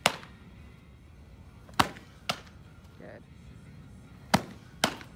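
Sharp leather pops of a softball smacking into a glove, five in all, the later ones in pairs about half a second apart.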